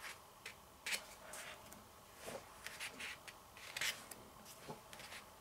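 Paper pages of a softcover photobook being turned by hand, one after another: a run of short paper swishes and flicks, the loudest about a second in and near four seconds.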